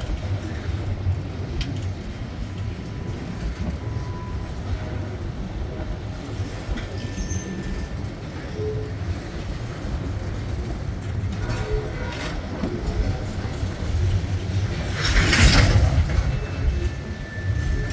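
Loaded Herzog ballast gondolas of a freight train rolling past, their wheels on the rails making a steady low rumble. A brief, louder rush of noise comes near the end.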